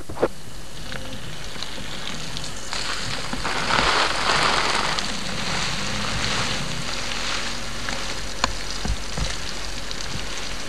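Water spraying from a garden hose onto plants and soil: a steady hissing spatter, louder for a couple of seconds around the middle, with a brief knock a little after the middle.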